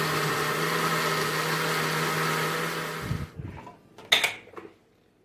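Electric blender running steadily with a low hum, blending melon for agua de melón, then switched off about three seconds in and winding down, followed by a single sharp clack.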